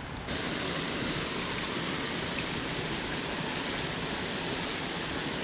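Steady rush of flowing creek water, which rises sharply just after the start and then holds level.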